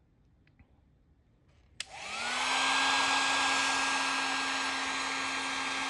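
Heat gun switched on about two seconds in: its fan spins up within half a second to a steady rush of air, with a low hum and a thin whine, blowing on heat-shrink tubing over soldered wires.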